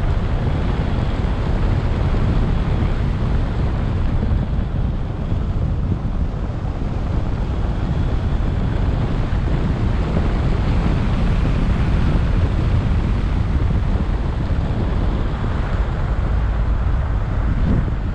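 Wind rumbling over the microphone of an action camera on the roof of a moving car, a steady low noise with the car's road and tyre noise underneath.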